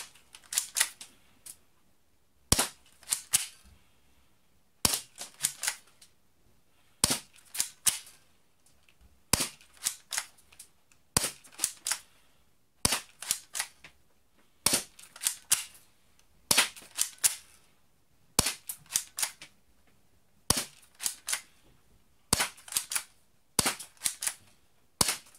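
Spring-powered Double Eagle P169 airsoft pistol being fired shot after shot, about a dozen times, roughly every two seconds. Each shot comes with a quick run of plastic clicks as the slide is pulled back to re-cock the spring for the next BB.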